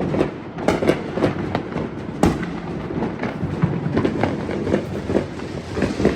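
Gunshots at a shooting range: a string of irregular sharp cracks and knocks, the sharpest about two seconds in.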